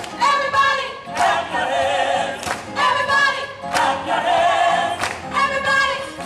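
Gospel choir singing in full harmony with no instruments, with sharp hand claps on the beat about once every second and a quarter.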